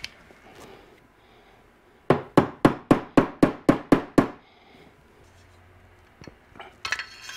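A small hammer taps a metal rifle handguard locator pin about nine times in quick, even strikes, roughly four a second. Near the end, metal parts clink.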